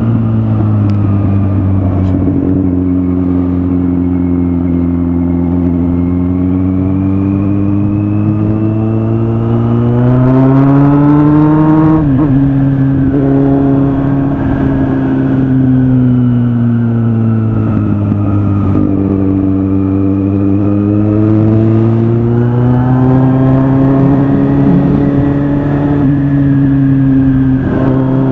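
Kawasaki Z800's inline-four engine running under way. Its note holds steady, climbs with the throttle about ten seconds in and drops sharply around twelve seconds, then sags and climbs again before another sharp drop near the end.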